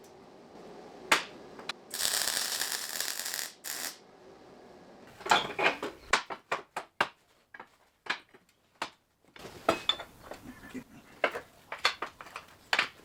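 Metalworking in a workshop: two short bursts of even hissing noise, then from about five seconds in a run of sharp, irregular metallic clicks and clinks as steel parts and tools are handled.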